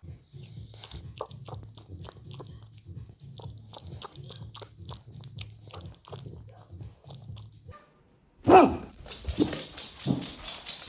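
Boxer dog chewing, with a pulsing low rumble and many sharp clicks. About eight seconds in it gives one loud bark, followed by two shorter vocal sounds.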